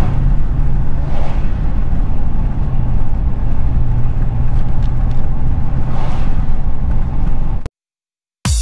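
Plow truck driving at road speed, heard from inside the cab: a steady low engine and road rumble. It cuts off abruptly near the end, and electronic music starts after a brief silence.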